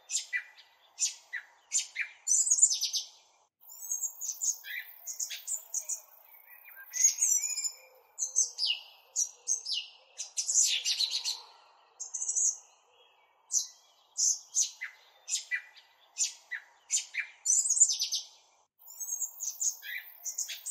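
Birds chirping: many short, quick high chirps, several sweeping downward, in clusters with brief gaps.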